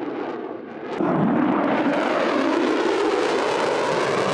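Fighter jet flying past, a steady rushing jet-engine noise that jumps louder about a second in.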